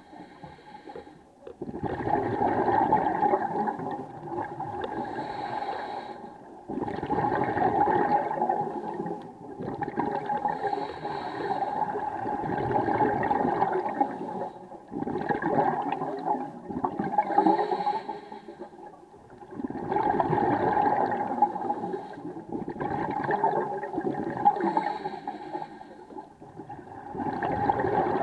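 A scuba diver breathing through a regulator, heard underwater: a rushing, gurgling surge of exhaled bubbles every few seconds, with short lulls between breaths.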